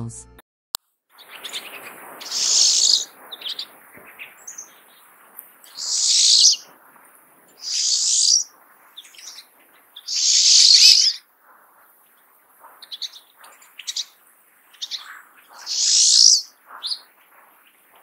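Pine siskin calling: five loud, high, drawn-out notes, each about a second long, with softer short chips between them.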